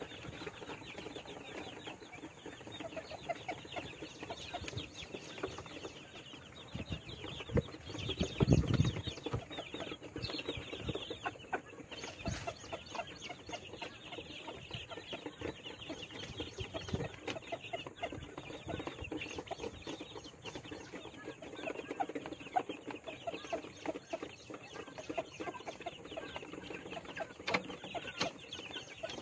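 Chicken chicks and quail in their cage calling continuously, a dense run of short chirps and peeps. A brief louder low thump comes about eight seconds in.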